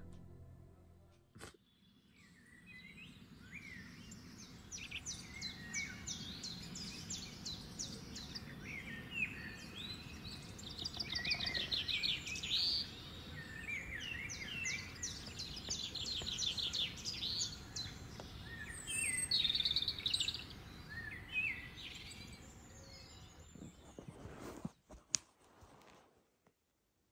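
Several songbirds singing outdoors, overlapping fast trills and chirps, over a low steady rumble. A few sharp clicks sound near the end, then it goes nearly silent.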